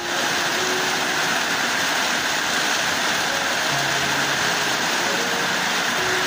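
Steady rushing noise of a storm's strong wind and heavy rain, starting suddenly and holding level, with faint music underneath.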